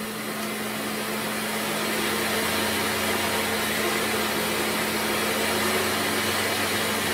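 Bell & Howell Filmo Picture Master 8mm projector's electric motor running with a steady hum, rising over the first couple of seconds as the speed control is turned up and then holding steady. The idler-wheel drive is not engaging, so the motor runs without driving the film mechanism.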